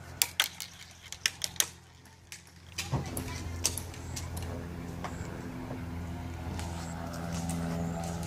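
A scatter of sharp, irregular clicks and taps over the first couple of seconds. Then, from about three seconds in, a steady engine-like drone with several fixed pitches comes in and grows a little louder.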